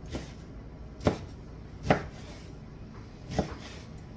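Kitchen knife chopping a raw paddlefish fillet into chunks on a wooden cutting board: three sharp knocks of the blade striking the board, with a fainter one at the start.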